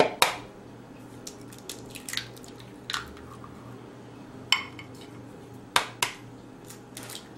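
Eggs being cracked against the rim of a mixing bowl: a series of sharp taps and clicks, one near the start and a close pair about two thirds of the way in the loudest, with softer knocks between.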